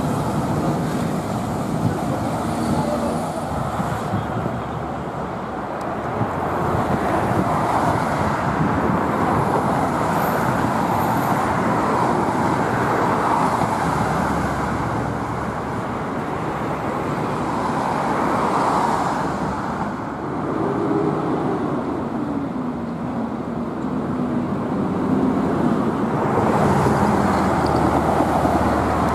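Road traffic: a steady wash of cars on a city road, swelling now and then as single vehicles pass.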